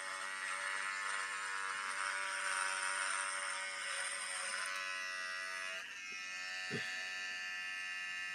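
Handheld electric beard trimmer running with a steady buzz as it cuts through a full beard. Its tone changes slightly about six seconds in.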